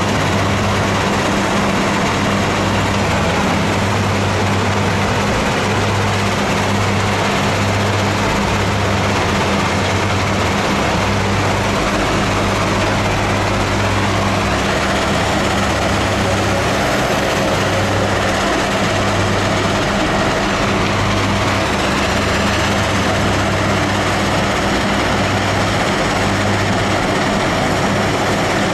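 Wheel loader's diesel engine running steadily, with a low hum that cuts in and out and a slight shift in pitch midway.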